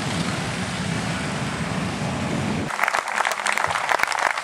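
A steady low rumble of vehicle engines and traffic. About two-thirds of the way in it cuts abruptly to a crowd applauding.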